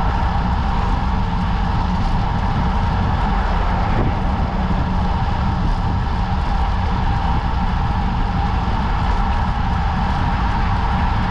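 Steady wind rush over the microphone and road noise from a road bike moving at about 46 km/h on asphalt.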